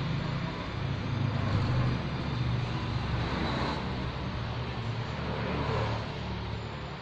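Steady road traffic noise: vehicle engines running with a low hum, swelling twice as vehicles pass.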